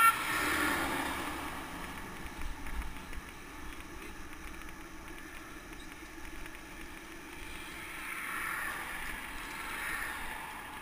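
Cars passing a moving bicycle on a two-lane road, their tyre and engine noise swelling and fading: one goes by right at the start and another near the end, over a steady low noise of riding.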